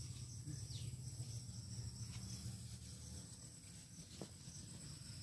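Faint steady high-pitched insect chirring, with a low background hum and a few faint ticks.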